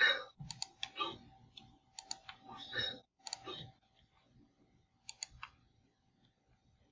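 Computer mouse button clicks: several sharp clicks, some in quick pairs, during the first three seconds and again around five seconds in, among a few duller sounds, with a faint steady tone under the first three seconds.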